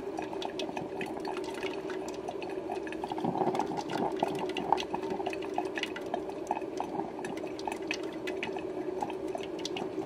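Bonavita drip coffee maker mid-brew: irregular gurgling and sputtering of hot water over a steady low hum.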